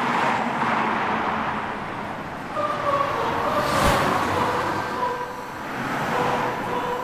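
Road traffic: cars driving past on a street, with one loud pass-by about four seconds in. A few held pitched notes come in over the traffic about halfway through.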